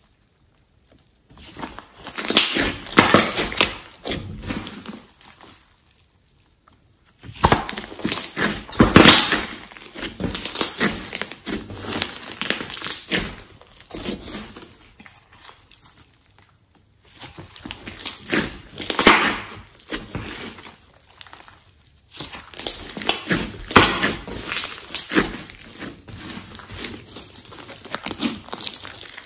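Hands stretching, pressing and poking a thick clay-mixed slime, which gives sticky crackling and popping sounds in four runs with short silent breaks between them.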